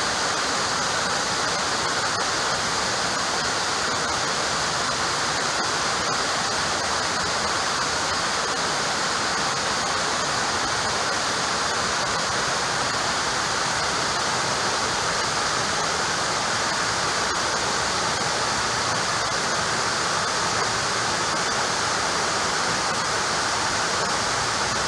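Steady, even rushing noise like a waterfall, unchanging in level throughout.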